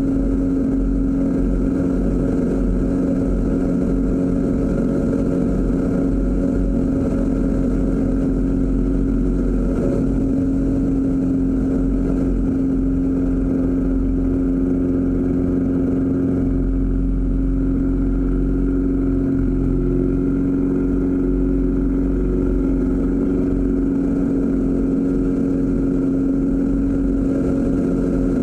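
Aerobatic plane's propeller engine running steadily at high power, heard from inside the cockpit, its pitch shifting only slightly through the manoeuvres.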